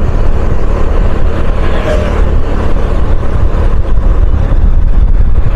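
Motorcycle riding along at speed, heard from the pillion seat: a steady, loud rush of wind and engine noise, heaviest in the low end.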